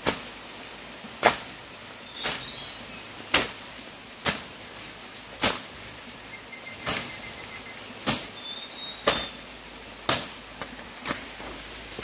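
A hand blade chopping through grass and leafy stalks, one sharp cut about every second. Faint bird chirps in the background.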